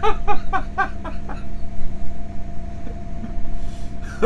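Steady drone of the trawler yacht's twin diesel engines running underway, heard in the wheelhouse. A quick run of five or six short pitched sounds sits over it in the first second and a half.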